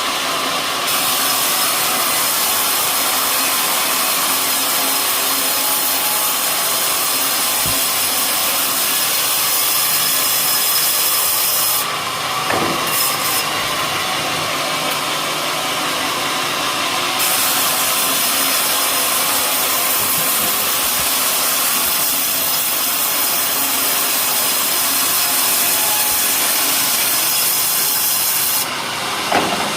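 Homemade sawmill's blade cutting lengthwise through a coconut palm trunk, a steady loud sawing noise with a bright hiss. The cut eases off for several seconds near the middle while the machine keeps running, then bites again and stops shortly before the end.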